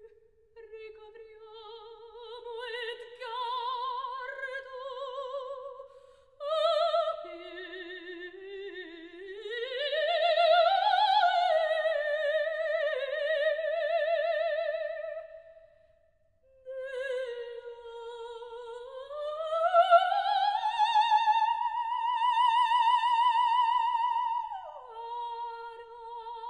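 A lyric soprano voice sings slow phrases from an operatic mad scene alone, with no accompaniment heard. Long notes carry a wide vibrato and slide between pitches. The voice climbs to a long, loud high note and drops back down near the end.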